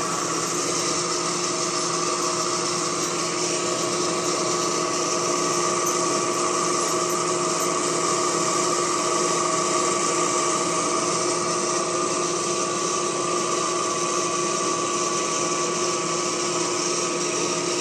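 Steady mechanical whir with a few constant humming tones, from a fan or small motor running without change.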